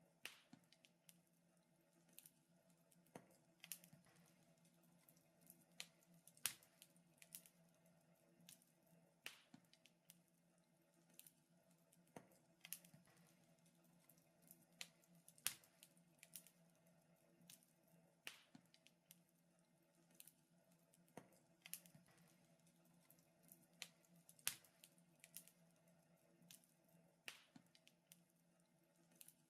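Wood fire crackling, with irregular sharp pops about one or two a second over a faint steady hum.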